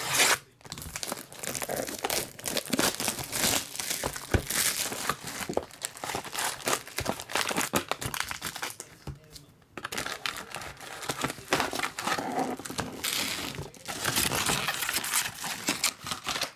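Plastic shrink wrap being slit and torn off a trading-card hobby box, then the foil-wrapped card packs crinkling as they are pulled out and stacked, with small taps of cardboard. There is a short pause about nine seconds in.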